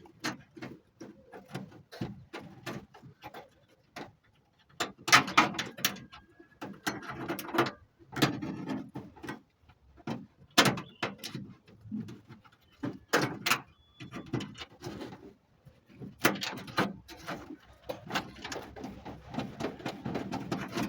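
Irregular clicks, taps and knocks of small metal parts and hand tools, with stretches of scraping, as a fabricated door lock rod retainer is fitted and positioned inside a car door.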